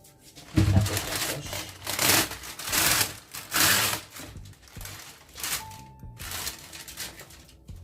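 A cloth rubbing and wiping a freshly washed metal baking tray dry, in several loud strokes during the first four seconds and lighter ones after.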